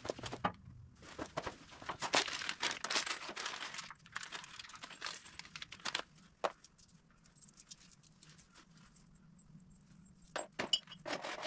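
Plastic hardware bags rustling and crinkling, with light metallic clinks of bolts being sorted by hand. Busiest in the first few seconds, then quieter with scattered clicks, picking up again near the end.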